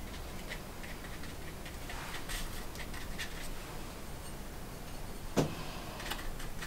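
Faint ticks and scratches of a small paintbrush dabbing watercolour onto paper and working paint on a ceramic plate, with one sharper click about five seconds in.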